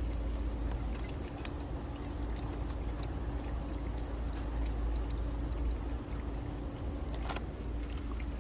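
Third-generation Kia Carnival minivan driving: a steady low rumble with a constant hum over it and a few faint light ticks.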